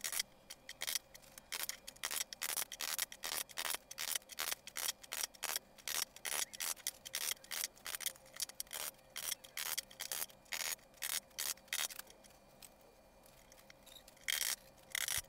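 Small hammer tapping nails into the wooden slats on the underside of a trunk: quick light taps, about two or three a second, that stop about twelve seconds in and start again near the end.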